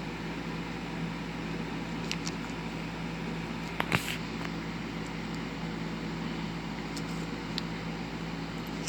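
Steady machine-like hum with a low tone, and two light clicks about four seconds in.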